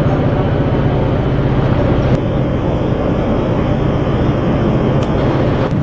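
A steady, loud engine drone with a low hum and a rapid even pulsing.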